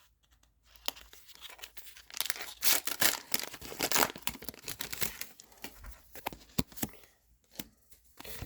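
A foil Pokémon booster pack wrapper being torn open and crinkled by hand, loudest in a dense crackling stretch in the middle, with scattered sharp clicks of handling before and after.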